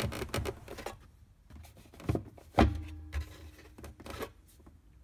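Plastic rear centre console box of a Mercedes W124 being handled in its clip-in brackets: a run of small clicks and rattles in the first second, then two sharper knocks about half a second apart a little past the middle.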